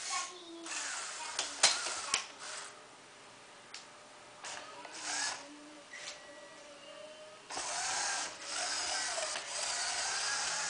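Electric motors and plastic gears of a Lego Technic model car whirring, with a couple of sharp clicks about two seconds in, as the wheels are lowered. About three quarters of the way through a louder, steady motor whirr sets in as the model drives across the floor.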